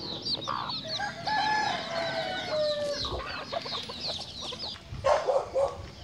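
Chicks peeping over and over in high, thin chirps while chickens forage. A rooster crows once, from about one second in to about three seconds in, and there is a short louder rough call near the end.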